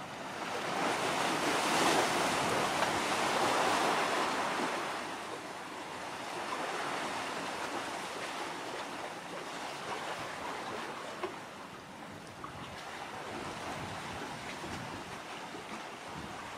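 Sea waves washing in. One larger surge builds and fades over the first few seconds, then the surf goes on more steadily.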